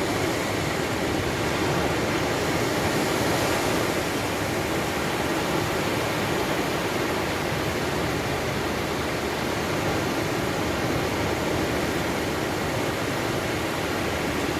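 Steady rushing noise, even in level, with no distinct events.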